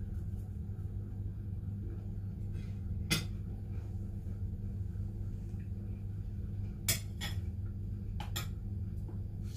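Spoon and tableware clinking against a ceramic bowl and plate: one sharp clink about three seconds in and a quick cluster of clinks near the end, over a steady low hum.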